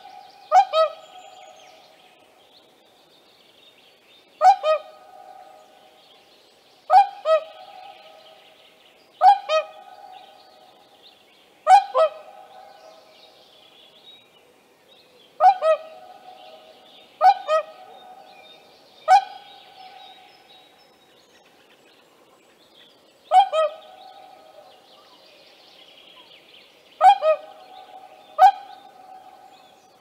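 Whooper swan giving loud, bugling honk calls, mostly in quick pairs of two notes, repeated every two to four seconds.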